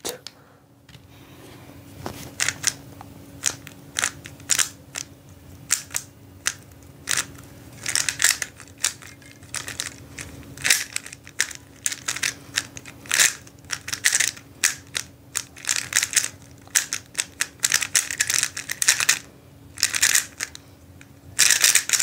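Rapid plastic clicking and clacking of a 3x3 speedcube being turned at speed. The turns start about two seconds in and come in fast runs with short pauses between them, over a faint steady hum.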